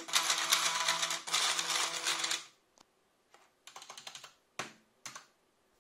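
NEMA 17 stepper motors humming with a few steady tones as they turn the PLA vanes of a 3D-printed mechanical seven-segment display, with a busy rattle from the mechanism, stopping about two and a half seconds in. Then computer keyboard keys click in short runs as the next digits are typed.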